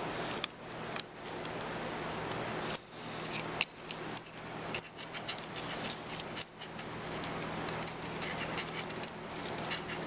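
Small metallic clicks and scrapes of a hand tool working an old kill switch and its metal backing plate off a dirt bike's handlebar. The clicks come irregularly, then turn into a dense run of rapid light ticks for the last couple of seconds.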